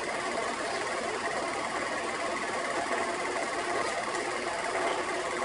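Film projector running, a steady mechanical clatter from its film transport.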